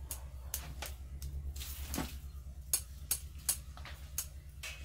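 Scattered short, sharp clicks and snaps, about a dozen over a few seconds, over a steady low hum.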